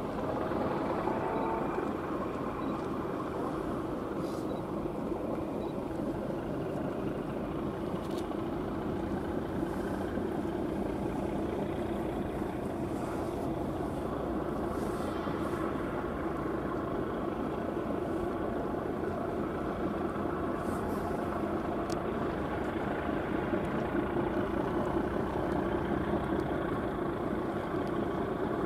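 Tugboat engines running steadily with a low drone, and a short rising engine note about a second in.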